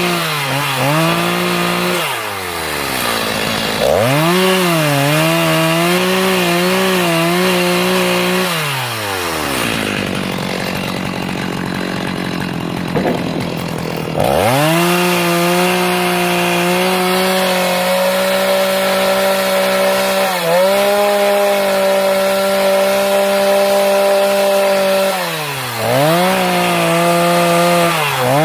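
Stihl Farm Boss two-stroke chainsaw carving into a block of wood, running at high revs with short dips in speed. Near the middle it drops to idle for a few seconds, then revs back up and cuts on.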